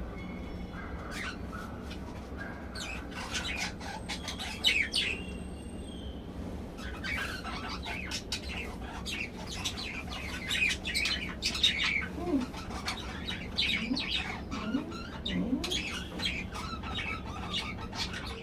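Budgerigars chirping and warbling in rapid, busy chatter over a steady low hum, the chatter thickest in the second half.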